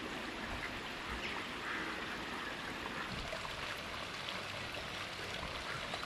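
Steady rush of flowing water with ducks calling over it.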